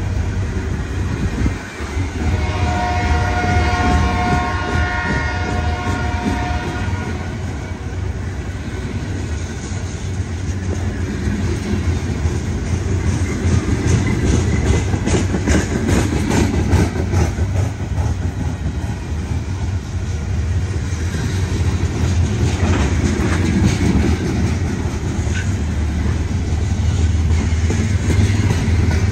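A freight train passing: the locomotive's air horn sounds a chord for the first several seconds, with a short break about two seconds in. After that comes a steady low locomotive rumble, with wheels clicking over the rail for a stretch in the middle.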